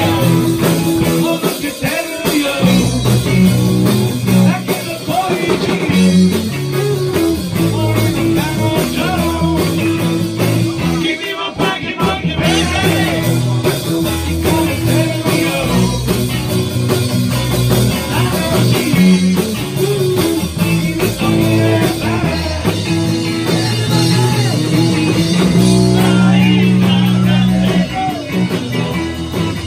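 Live rock and roll band playing: electric guitars, bass and drums, with a man singing lead at the microphone.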